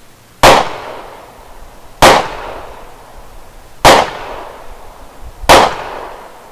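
Four gunshots, evenly spaced about a second and a half to two seconds apart, each ringing out and fading over about a second.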